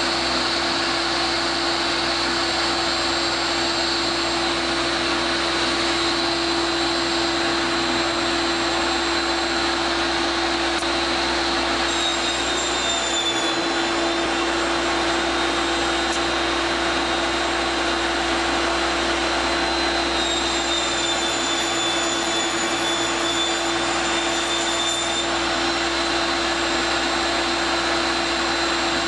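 Steady whirring of an electric motor running continuously, with a high whine that dips slightly in pitch twice.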